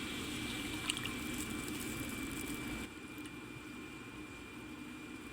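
Heavy whipping cream being poured into a saucepan of hot butter and minced garlic, with a steady hiss that drops to a quieter level about three seconds in.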